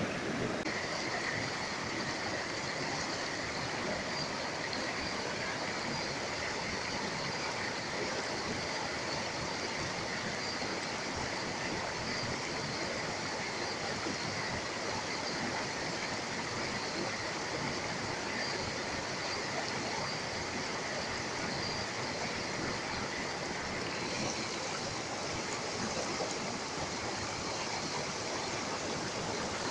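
Water of a shallow, rocky mountain stream rushing over boulders and through small rapids: a steady, even rush.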